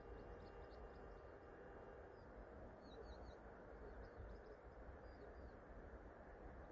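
Faint outdoor ambience, close to silence, with a few short, high bird chirps: a small cluster about two to three seconds in and two more about five seconds in.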